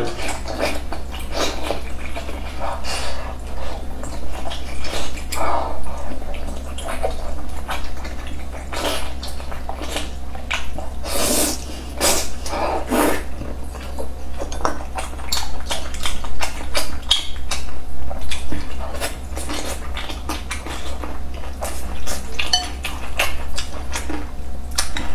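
Wet mouth sounds of someone eating soft braised pork belly and glass noodles: irregular smacking, squelching chewing and sharp lip clicks, over a steady low hum.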